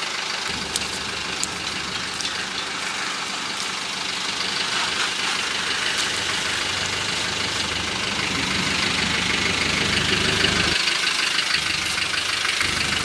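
A 4x4 engine idling steadily, with a few faint clicks about a second in.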